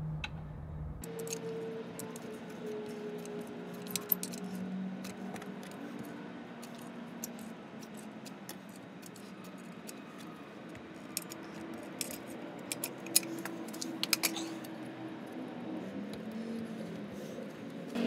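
Manual caulking gun dispensing clear sealant, with scattered sharp clicks and light rattles from its trigger and plunger rod, mostly about four seconds in and again past the middle, over faint steady tones.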